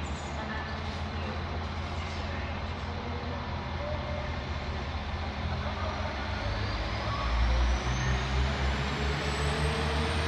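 Northern class 195 diesel multiple unit pulling away from a platform. The diesel engine rumbles and grows louder about two-thirds of the way in, with a rising whine as the train picks up speed.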